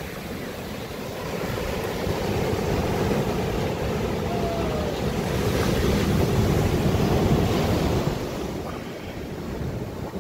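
Ocean surf breaking and washing up over sand and rocks, a steady rush of water that grows louder a few seconds in and eases off near the end.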